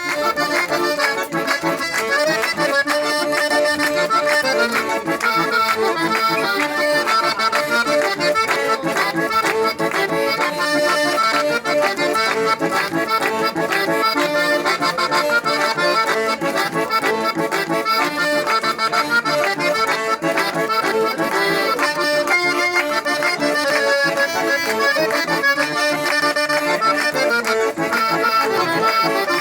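Three-row diatonic button accordion playing a tune without a break, notes changing in quick succession.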